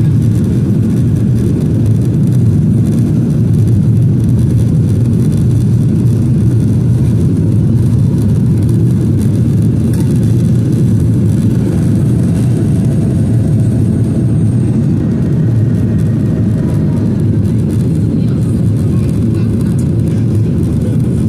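Steady, loud cabin roar of a Boeing 737-800 in its climb after takeoff: the CFM56-7B engines and rushing airflow, heard from a seat over the wing.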